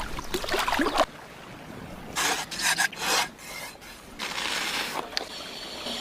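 Rough rasping scrapes in three bursts, each about a second long.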